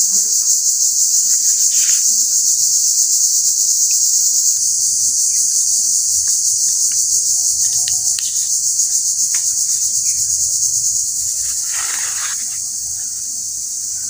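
A loud, continuous chorus of insects trilling high-pitched in a rapid pulsing rhythm, easing slightly near the end. Under it are faint clicks and rustles of bottle gourd leaves and stems being handled and peeled on a plastic cutting board, the loudest rustle about twelve seconds in.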